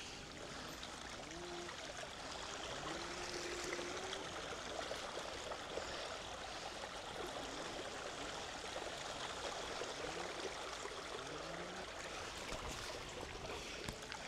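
Bicycle tyres rolling through shallow floodwater on a paved path: a steady splashing, swishing water sound, with a faint whine rising in pitch a few times.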